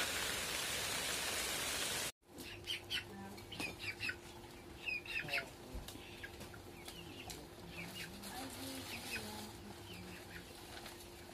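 Heavy rain hissing steadily for about two seconds, then after a sudden break, chickens clucking and chirping in short calls, with a faint steady hum underneath.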